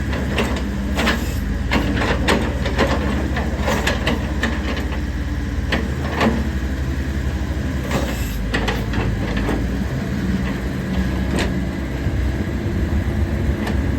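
Komatsu PC70 excavator's diesel engine running steadily, with frequent short sharp clanks and squeaks over it.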